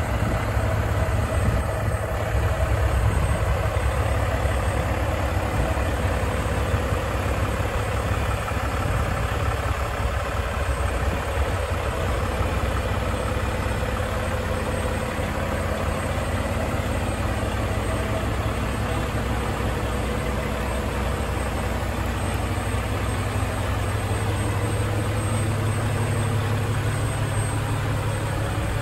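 2015 Volvo VNL semi-truck's diesel engine idling steadily.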